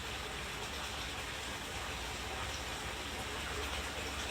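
Steady hissing background noise with a low hum underneath; no distinct clicks or other events.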